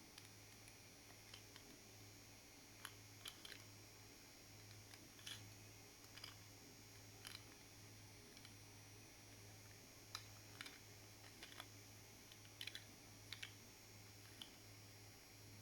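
3D-printed PLA do-nothing machine running: faint, irregular light plastic clicks over a low, steady hum that pulses about twice a second.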